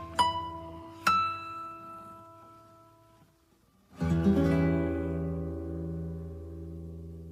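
Background music: a few plucked notes ring out and fade to silence, then about four seconds in a new piece begins with a sustained chord.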